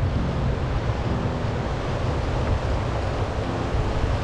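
Wind rushing and buffeting over the microphone of a moving e-bike, a steady low rumbling noise.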